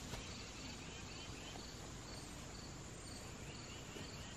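Insects chirping in a quick, regular pulse over a steady outdoor hiss, with two short runs of faint higher chirps.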